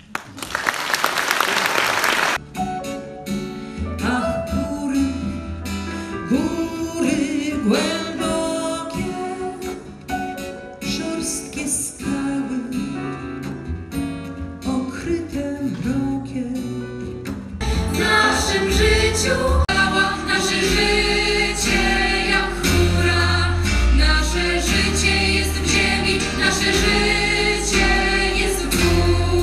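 Brief applause, then a woman singing to a light instrumental accompaniment. About two-thirds of the way through, a group of young singers and a band with bass, drums and guitar come in, and the music grows fuller.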